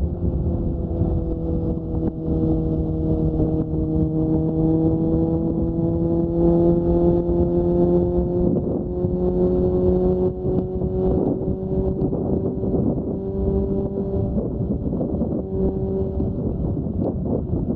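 Suzuki GSX-S 750 inline-four running through an aftermarket Mivv Storm exhaust under way, with a steady engine note whose pitch climbs slowly, wavers briefly about halfway and then holds steady. Wind rushes at the microphone throughout.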